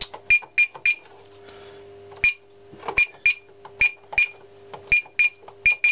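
Keypad buttons pressed on a Gent Xenex fire alarm control panel to start a test, each press a click with a short high beep, about a dozen at an uneven pace. A steady low hum runs underneath.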